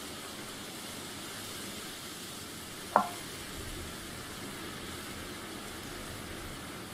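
Steady background hiss with one short, sharp click about three seconds in, as a banana leaf is handled and folded over the batter on a wooden table.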